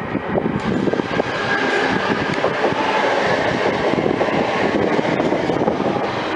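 Class 323 electric multiple unit pulling out and running past, a steady rail rumble that grows louder over the first few seconds.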